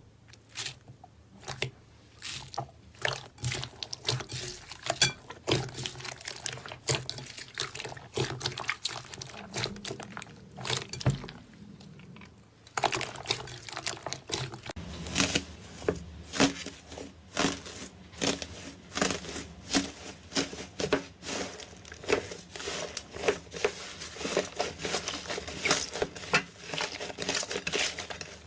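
Slime being squeezed and stretched by hand, giving a run of quick sticky pops and crackles that grow denser and louder about halfway through.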